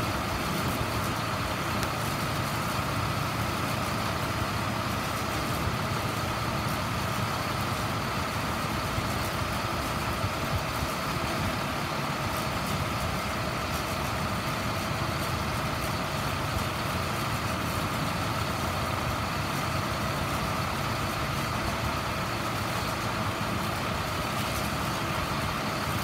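Vac-Con vacuum truck on a 2008 International Workstar running steadily, its diesel engine powering the hydraulics as the hose boom is swung and lowered, with a steady whine over the engine's low rumble.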